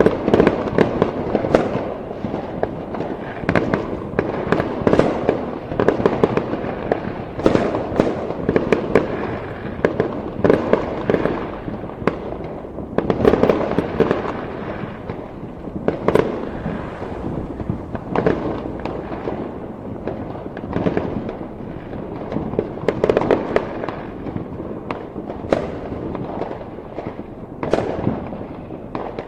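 Fireworks going off continuously: a dense run of bangs and crackling bursts, overlapping one another, with a louder bang every second or two.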